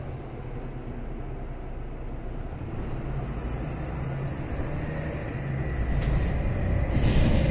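Volksbus 18.280 OT city bus engine running, heard from inside the passenger cabin as a steady low hum. A hiss comes in about three seconds in, and the noise builds over the last few seconds as the bus gets under way.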